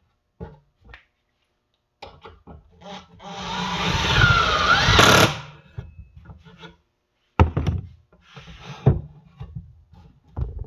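Wooden frame being handled on a workbench: a rubbing scrape of wood that swells for about two seconds with a faint squeak in it, then a few sharp wooden knocks and thuds.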